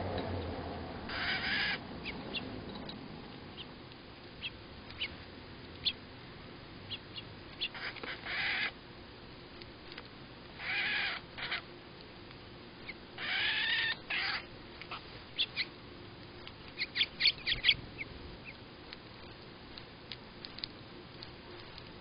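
Female northern cardinal scolding house sparrows at a feeder: four harsh calls about a second long, with short sharp chips between them and a quick run of louder chips about seventeen seconds in.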